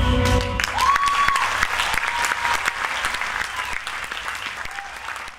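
Theatre audience applauding at the end of a musical number, the music's last low note dying out in the first half-second. The clapping slowly fades toward the end.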